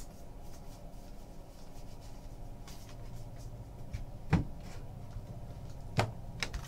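Soft handling of a stack of trading cards over a low room hum, with a few faint clicks and two dull thumps, the louder about four seconds in and another near the end, as the stack is set down on the desk.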